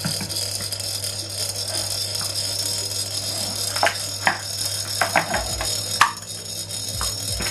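Homemade magnetic stirrer, a PC power-supply cooling fan spinning a magnet under a container of water, running with a steady hum and a high whine. A few sharp clicks and knocks come from about four seconds in.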